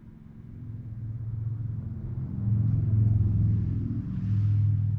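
A low mechanical rumble that builds over the first couple of seconds and stays loud through the second half, with a faint brief hiss a little after four seconds.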